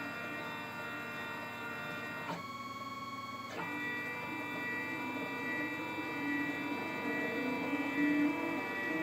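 Stepper motors of a 4-axis CNC hot-wire foam cutter whining as they drive the wire, in steady tones that shift in pitch as the axis speeds change, with a sudden change a little over two seconds in and a switch back about a second later.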